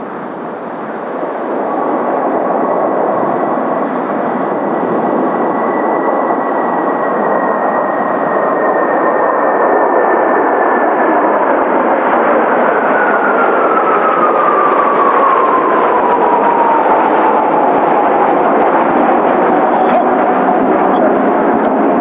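Kawasaki T-4 jet trainers in a formation low pass, a steady loud rush of turbofan noise. Their engine whine slides down in pitch over several seconds from about halfway through as the formation passes and draws away.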